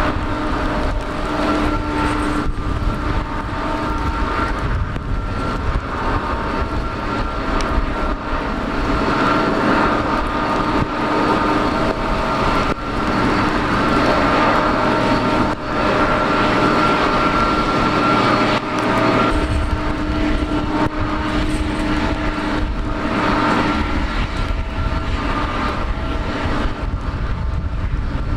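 Boeing 777-200 jet airliner running steadily with a whine of several held tones while a tug pushes it back, with a low rumble underneath that thins out partway through and returns.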